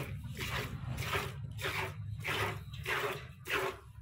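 Milk squirting in jets into a plastic bucket as a desi cow is hand-milked, a rhythmic squirt about twice a second.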